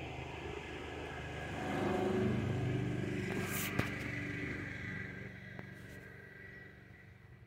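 A motor vehicle's engine going by unseen, growing louder over about two seconds and then slowly fading away, with one sharp click about four seconds in.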